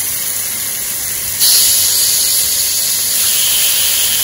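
Chicken pieces sizzling as they go into hot oil and cooked-out curry powder in a pot: a steady frying hiss that turns louder about a second and a half in as more pieces are added.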